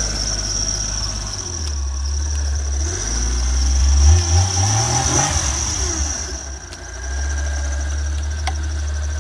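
A vehicle's engine revs up and back down in deep snow about three to five seconds in, as the departing vehicle gets stuck. A steady low engine rumble runs underneath, with a steady high-pitched squeal.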